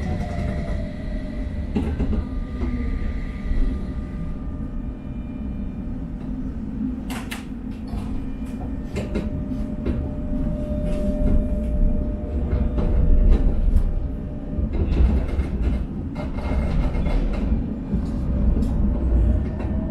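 Tram running along its line. Its electric traction motors whine, falling in pitch as it slows at the start and rising again as it picks up speed near the end, over a steady running rumble. Clusters of sharp clicks come in the middle and again later as the wheels run over rail joints and points.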